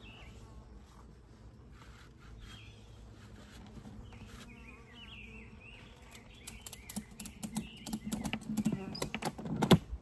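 Ratchet strap being cranked tight around a beehive: a run of irregular ratchet clicks starting past the middle and getting louder, the loudest click near the end.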